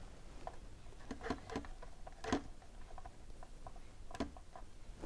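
Faint, scattered small clicks and taps of fingers handling a wooden model ship hull while pressing a glued moulding strip into place. The sharpest click comes about two seconds in.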